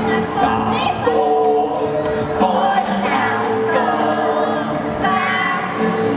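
Children's choir singing a song live, with instrumental accompaniment.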